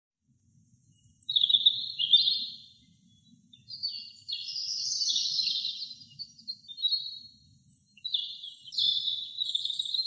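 European robin singing: a run of high, thin warbling phrases of quick notes, with short pauses between the phrases.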